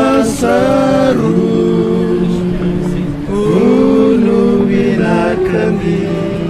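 Unaccompanied voices singing long, held notes.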